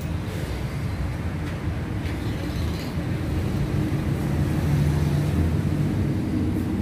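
Steady low rumble of road traffic, with a low engine hum that grows stronger for about a second around five seconds in.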